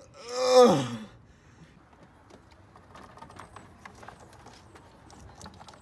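A man's drawn-out groan, falling in pitch, in the first second. Then faint scattered clicks and light handling noise from hands working on hoses and parts in the engine bay.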